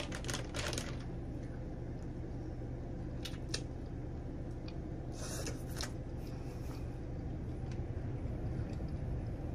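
A person eating a rotisserie chicken wing: short bursts of smacking and tearing from biting and chewing, a few seconds apart, over a steady low hum.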